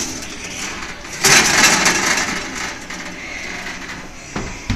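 A covered pan going into a kitchen oven: a loud scraping rush about a second in, then quieter handling, and two sharp knocks near the end.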